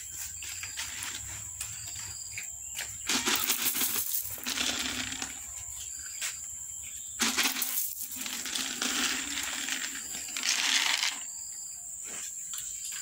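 Dry cat food pellets poured onto a hard tiled floor, a dense patter of small hard impacts. It comes in two pours, one about 3 seconds in lasting roughly two seconds and a longer one from about 7 to 11 seconds in.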